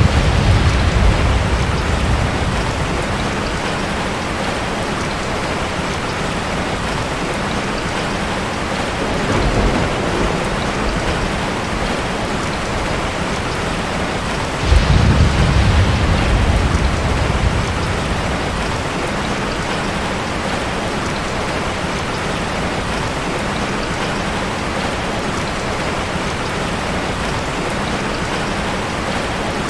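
Heavy rain falling steadily in a thunderstorm. A thunder rumble is heard at the start, a softer one about ten seconds in, and a sharp clap at about fifteen seconds that rolls on for a few seconds.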